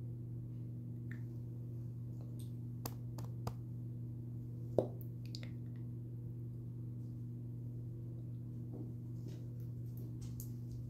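Steady low hum, with a few light clicks and taps from a lip gloss tube and its wand applicator being handled; the sharpest click comes about five seconds in.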